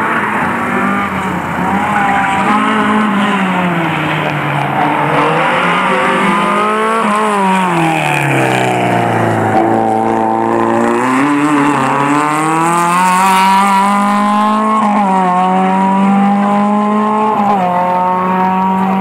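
Peugeot 205 MI16's four-cylinder engine on a track lap. The revs drop to a low point about halfway through as the car slows into a tight bend, then climb again as it accelerates away. The tyres squeal briefly a little after halfway, and the engine holds a steady high pitch near the end.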